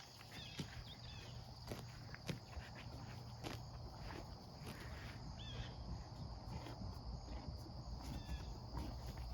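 Steady high-pitched chorus of crickets, with scattered soft clicks and rustles of movement and a few short chirps.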